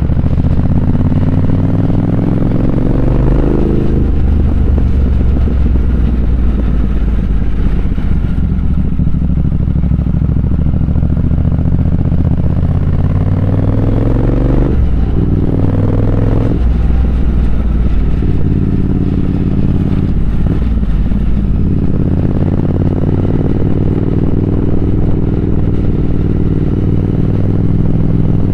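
Triumph Speed Twin 1200's parallel-twin engine under way, rising in pitch as the bike accelerates and dropping back at gear changes: once about four seconds in, twice in quick succession around the middle, then climbing again through the last third.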